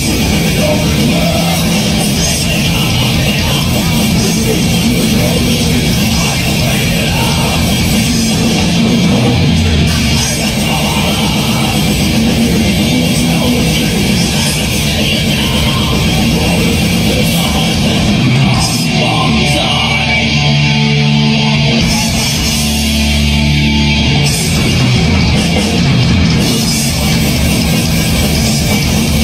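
Live heavy metal band playing loud, with distorted electric guitars, bass guitar and a drum kit, heard from among the audience.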